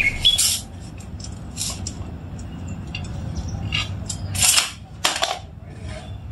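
Tools being handled and hung up: scattered light clicks and knocks, with two louder scraping knocks about four and a half and five seconds in.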